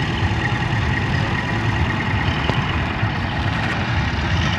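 Vintage tractor engine running steadily at low speed as the tractor drives slowly past.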